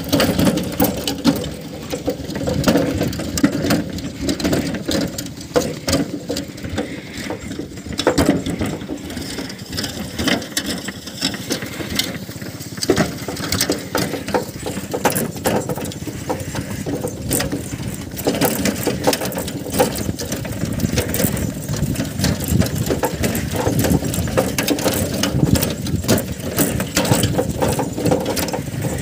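Wooden bullock cart drawn by a pair of bullocks rolling along a dirt road: a steady rattle and clatter of the cart with many small knocks and clicks.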